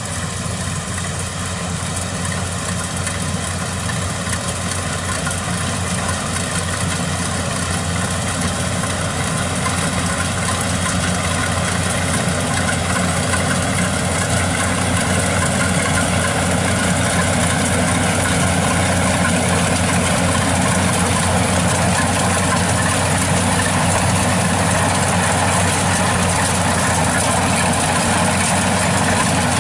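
Kubota DC-95 rice combine harvester running steadily as it cuts and threshes rice: a constant engine drone with a broad mechanical rush, growing gradually louder.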